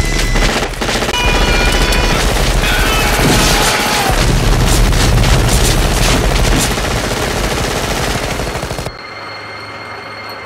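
Sustained automatic gunfire from several weapons, including a rotary machine gun, mixed with dramatic film music. The firing stops suddenly about nine seconds in, leaving a quieter steady sound with a thin high tone.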